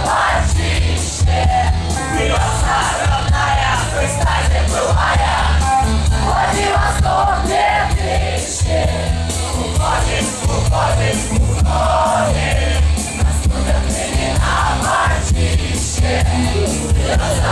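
Loud live rock music with heavy bass and drums, with voices singing over it as in a rock karaoke.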